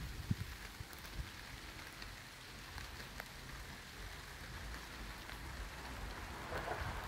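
Rain falling steadily during a thunderstorm, with scattered ticks of single drops and a low rumble underneath.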